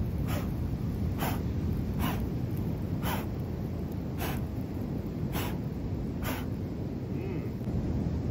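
A man blowing on the embers of a small wood fire in short, sharp puffs, about seven in six seconds, to bring up the flames under a roasting bone. A steady low rumble of wind on the microphone runs underneath.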